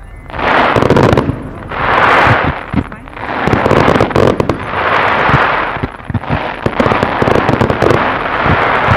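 Fireworks display shells firing and bursting in quick succession: repeated swells of noisy crackle about a second long, over many sharp pops.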